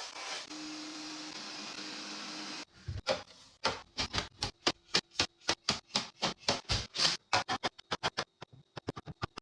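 Restocking handling sounds: a steady hiss for about two seconds, then a long run of quick sharp clicks and taps as items are handled and set down, coming faster near the end.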